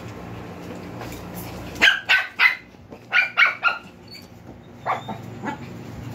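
Small dogs barking at play: two quick runs of three sharp barks, about two and three seconds in, then two fainter barks near the end.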